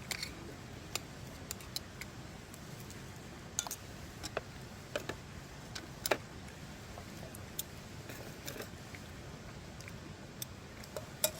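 Scattered sharp clicks and small taps at irregular intervals, over a low steady background.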